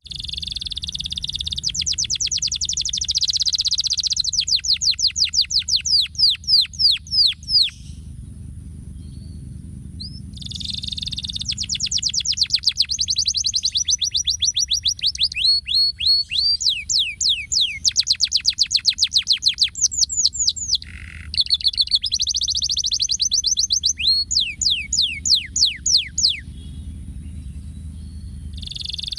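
Domestic canary singing long song phrases of rapid buzzy rolls and runs of quick downward-sweeping whistled notes. The song pauses twice, about eight seconds in and again near the end. A steady low rumble runs underneath.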